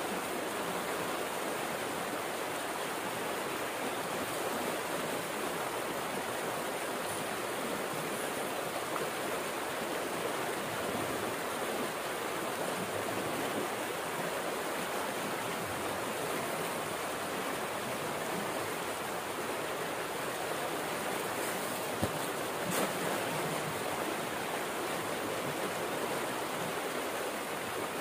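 Water pouring out of a concrete culvert pipe into a muddy stream: a steady, unbroken rush of falling, churning water.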